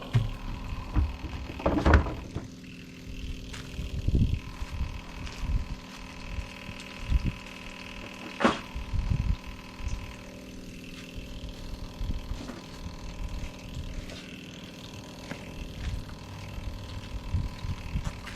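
Old electric fuel pump running steadily with a hum, pumping stale gasoline out of the tank into a jug. A few knocks and thumps of handling are heard, the loudest about two seconds and eight seconds in.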